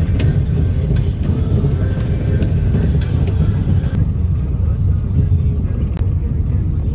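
Steady low rumble of a car in motion, with music playing over it; about four seconds in, the higher sounds drop away abruptly.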